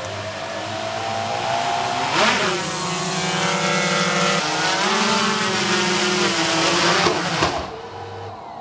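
GoPro Karma quadcopter's motors and propellers whining. They spin up with a sharp rise in pitch about two seconds in as it lifts off, hover with the pitch shifting up and down, then spin down near the end as it lands.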